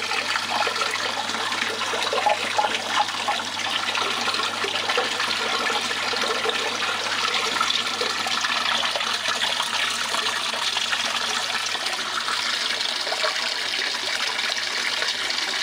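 Water running steadily across a DIY miller table, a thin sheet of water flowing down the mat and washing black sand off the deck.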